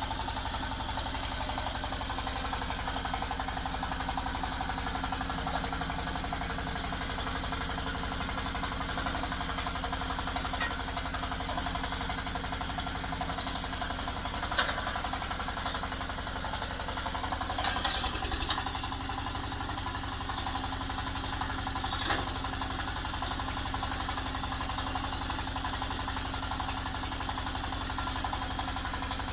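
Diesel engine of a small hydraulic water-well drilling rig running steadily, with a few sharp knocks as the drill pipes are handled and taken out of the borehole.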